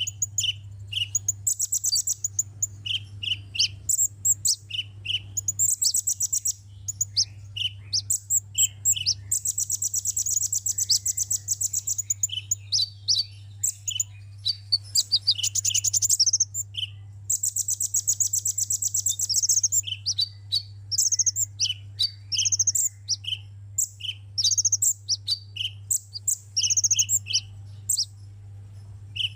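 Sunbird song: fast, high-pitched trills and short sharp chirps in quick succession, with two longer trills of about two seconds each near the middle, over a steady low hum.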